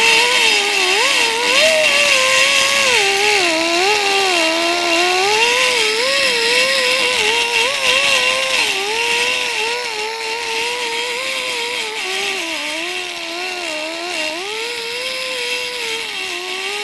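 Die grinder with a carbide cutting bit cutting into the curb-rashed lip of an aluminum wheel, clearing dirt and rounding off the sharp gouge edges. Its whine wavers up and down in pitch as the bit is worked lightly along the damage, with a steady hiss above it.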